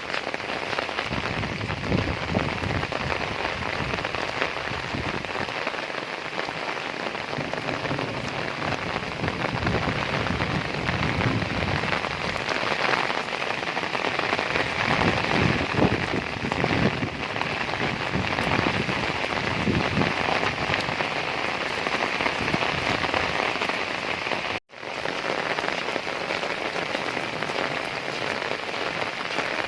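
Heavy rain falling steadily, a dense patter of drops. It cuts out for an instant about five seconds before the end.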